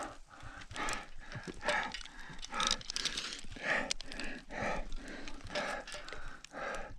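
A climber's heavy, labored breathing under exertion, a loud breath about once a second. Short clicks and knocks from the climbing gear fall between the breaths.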